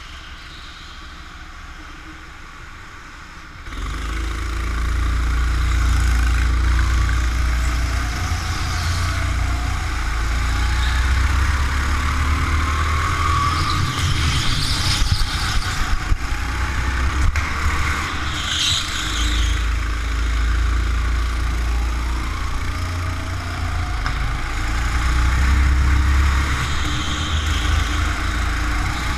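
Go-kart being driven hard, its motor pitch rising again and again as it accelerates out of the corners. A heavy low rumble sets in about four seconds in and stays loud.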